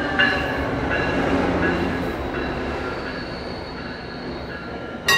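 GO Transit diesel-hauled commuter train rolling past a station platform: a steady rumble with high, intermittent squealing tones from the wheels, slowly fading as it goes by.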